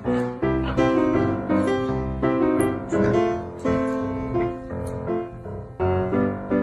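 Piano music: a melody of separate notes, each struck and fading, following one after another at an even pace.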